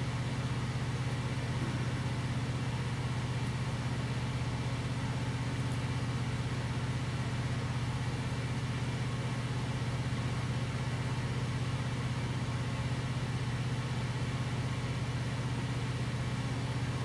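A steady low machine hum that holds without change.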